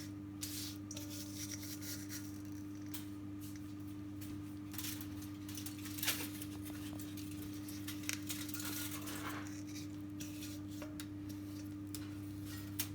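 Soft, irregular scraping and rubbing as spice marinade is scraped out of a dish and spread over a fish, with a few light clicks. A steady low hum runs underneath.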